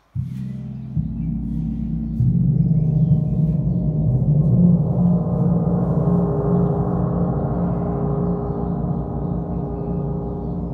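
Large gong struck with a mallet, with two more strokes about one and two seconds in. Its ringing swells and spreads into a dense shimmer of higher overtones over the next few seconds, then rings on, slowly fading.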